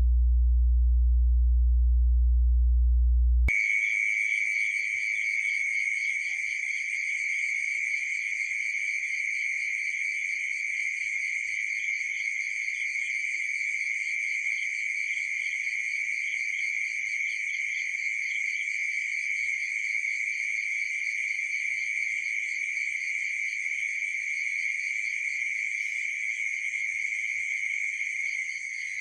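A loud, steady low hum for the first few seconds cuts off abruptly, giving way to a steady night chorus of crickets and other insects: several high trilling pitches layered together, each pulsing rapidly.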